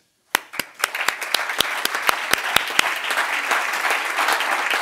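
Audience applauding: a few separate claps about a second in quickly build into steady, full applause from a large crowd.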